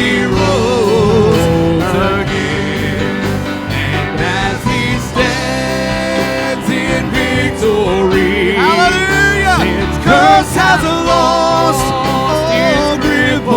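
Live worship band playing with a vocalist singing, including a long note held with vibrato about two-thirds of the way through.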